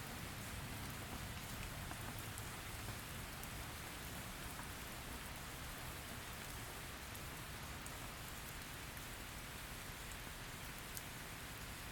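Steady rain falling, with a few faint sharp drop ticks.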